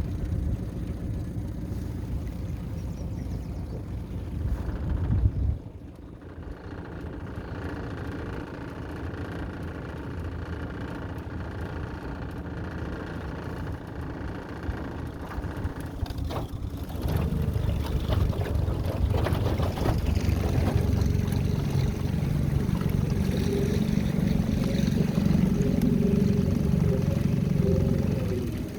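A small boat's motor running steadily. It drops briefly about five seconds in and runs louder and fuller from about 17 seconds in.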